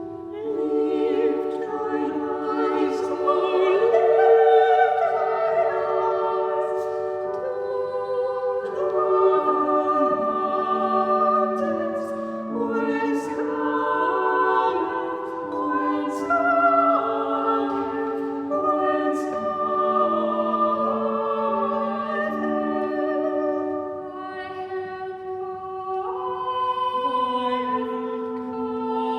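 A choir singing slow, sustained vocal lines in several parts.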